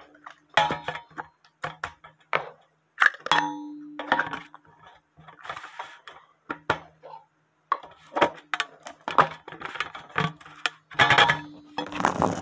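A run of separate knocks, clinks and clatters of dishes and utensils being handled, several followed by a short ringing ding.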